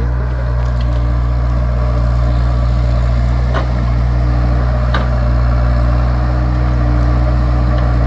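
Hyundai HX60A mini excavator's diesel engine running steadily under load while its root grapple prises a large tree's roots out of the ground; a steady whine comes in about a second in, and two faint cracks come a second and a half apart near the middle.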